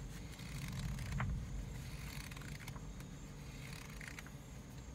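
Passing traffic on a wet road: tyre hiss over a low rumble, loudest about a second in.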